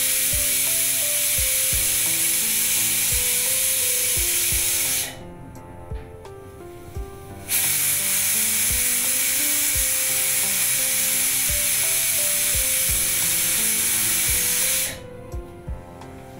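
Pressure cooker whistling: steam jets out from under the weight on its vent in a loud, high hiss, signalling full pressure as the dal cooks, with the whistles counted to time the cooking. The first blast stops about five seconds in, and a second begins about two and a half seconds later and runs for about seven seconds.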